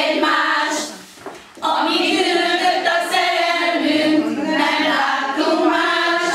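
A small group of women singing together unaccompanied, with a short break about a second in before a long sung phrase.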